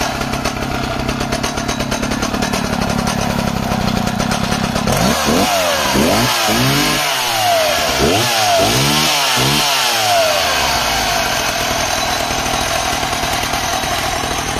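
Vintage 1970s Stihl 045 AV chainsaw's 75 cc single-cylinder two-stroke engine idling, revved in several quick throttle blips between about five and ten seconds in, then settling back to idle.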